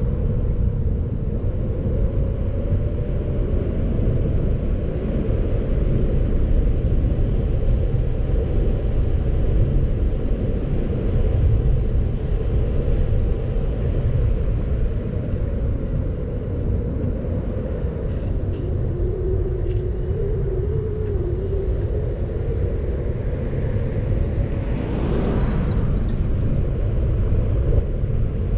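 A car driving on the road: a steady low rumble of tyre and road noise, with an engine note that drifts up and down in pitch. Near the end a louder swell of noise rises briefly and fades.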